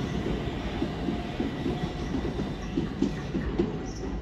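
Southeastern Class 375 Electrostar electric multiple unit running through the platform: a steady rumble of the train with irregular clicks of wheels over the rail joints.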